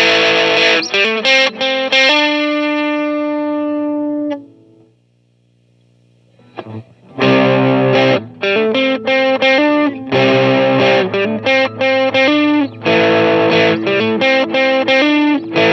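Electric guitar played through a Schu-Tone Auroch overdrive pedal, a tube-driver-style overdrive, giving an overdriven tone. Choppy chords give way to one held chord that rings out and fades, then after a pause of about two seconds, rhythmic chords start again.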